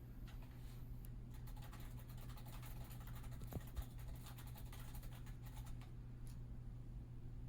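A quick run of light clicks and scratching lasting several seconds and easing off near the end, over a steady low electrical hum.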